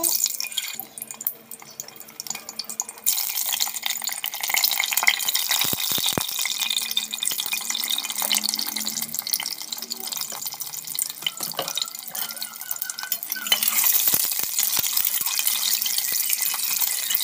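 Hot oil sizzling and crackling in a pot as boiled eggs fry in it. The sizzle steps up about three seconds in and again near the end, with a few knocks against the pot.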